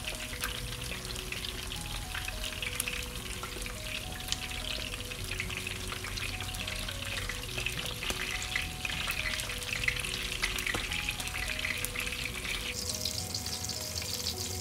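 Butterflied milkfish (daing na bangus) frying in hot oil in a nonstick skillet: a steady sizzle with fine crackling. A soft melody of slow single notes plays along in the background.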